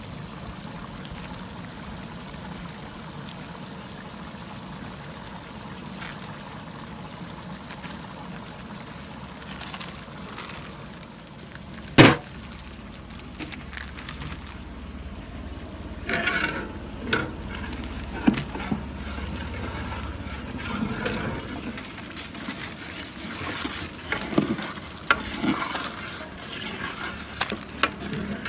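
A big pot of curry simmering while a long ladle stirs it, with a steady low hiss. About twelve seconds in comes one sharp, loud knock, and after that scattered rustles and clinks as packets of spice powder are handled on a large metal plate and one is cut open.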